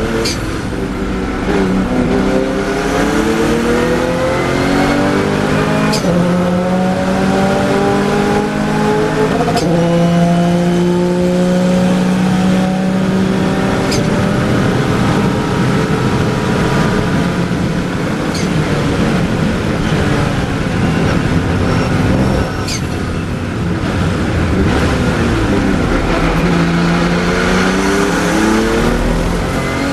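Porsche 993 GT2 Evo's twin-turbocharged flat-six engine heard from inside the cockpit at race pace. It climbs up through the gears, with the pitch rising and dropping back at each upshift, then holds high revs on a flat-out stretch. It lets off briefly about two-thirds of the way through and accelerates again near the end.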